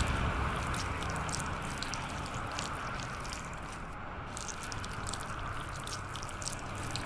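Cartoon sound effect of snails slithering: faint wet squishing and dripping clicks over a low steady rumble.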